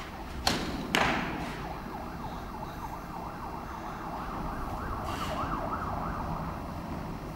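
Two sharp tennis-ball strikes about half a second apart, echoing in the indoor hall. They are followed by a wavering, warbling siren-like tone that lasts several seconds.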